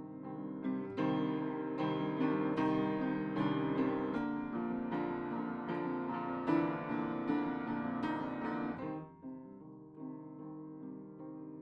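Piano music: a dense run of many quickly struck notes that thins out to quieter, sparser notes about nine seconds in.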